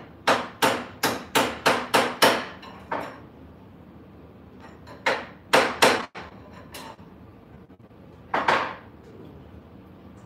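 Hammer strikes on the router table while it is being fitted: a quick run of about seven sharp knocks, about three a second, then a few more spaced out, with a last one near the end.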